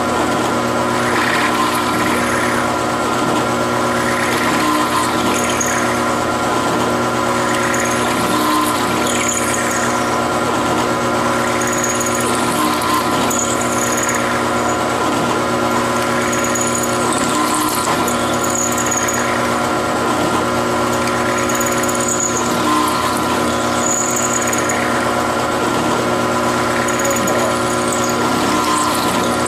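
Machine tool running steadily while cutting metal, with a short high squeal from the cutter about every two seconds.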